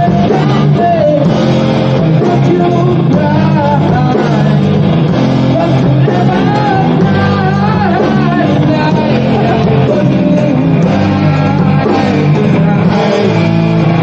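Rock music with distorted guitar, bass and a singing voice carrying the melody.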